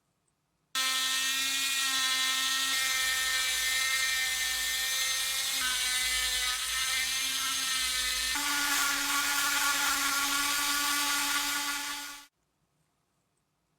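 A power tool's electric motor running steadily with a whining hum. It starts suddenly, shifts pitch slightly twice, then winds down and stops near the end.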